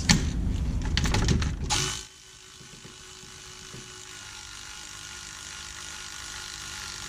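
Metal clinks and rattles as a bolt is wiggled into the dogbone mount, then about two seconds in a cordless ratchet runs steadily with a faint whine, slowly getting louder as it drives the bolt in.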